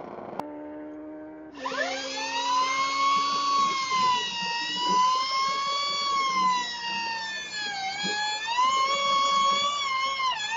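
Energica EGO RS electric motorcycle's motor whining. A steady hum at first, then from about a second and a half in a high whine that rises quickly and holds, wavering, with a short dip near the end. The rear tyre is spinning in a burnout on a slippery surface.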